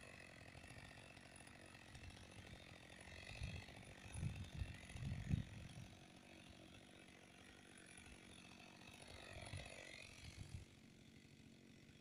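Faint chainsaw engine running, its high note wavering in pitch, then cutting out about ten and a half seconds in. A few low thumps come through around the middle and just before it stops.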